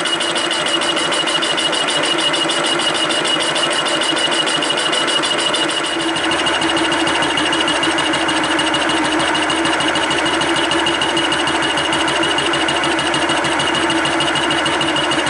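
Large fly cutter on a milling machine taking a facing cut across a metal block: a steady, fast, even cutting rattle over the machine's steady whine.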